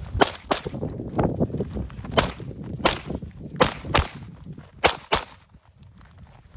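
Pistol fire: about eight sharp shots, mostly in quick pairs, with the shooter's footsteps on dirt and gravel between the pairs.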